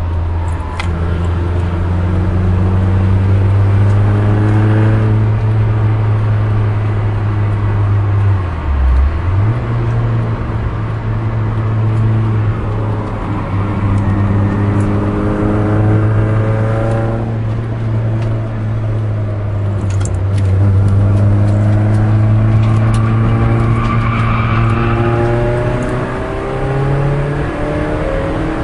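Peugeot 306 S16's four-cylinder engine heard from inside the cabin under hard track driving, its pitch climbing through the gears and dropping sharply at each gear change, with a brief lift about nine seconds in.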